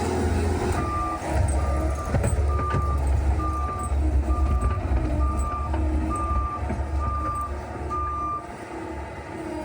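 Backup alarm of a Bobcat S76 skid steer beeping at an even pace of a little under one beep a second while its diesel engine runs underneath; the beeps stop shortly before the end, showing the machine reversing and then halting.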